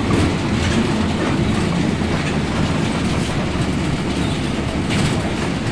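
Mercedes-Benz 1724L city bus on the move: a steady low rumble from the driveline and the road, with the differential droning very loudly.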